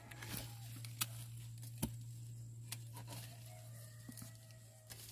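Faint rustling and scattered sharp clicks of dry sorghum stalks and leaves being handled and snapped during the harvest, over a low steady hum.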